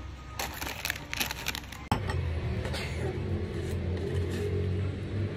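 Crinkling and clicking of plastic seaweed-snack packaging being handled for about two seconds. After a sudden cut, a steady low hum with faint light taps.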